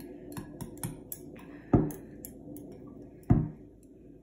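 A utensil clinking and scraping against a ceramic ramen bowl as the last noodles are scooped out: a string of light taps, with two louder knocks that ring briefly, a little under two seconds in and again about three seconds in.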